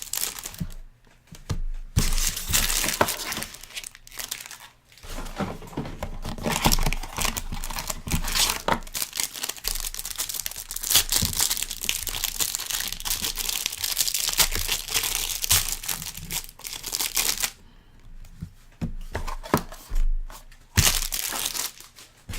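Plastic wrapping of a sealed box of trading cards being torn open and crumpled: a crinkling, crackling rustle with short pauses, thinning out to a few crackles near the end.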